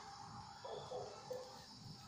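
Night forest ambience: a steady insect hum, with two or three short low animal calls around the middle.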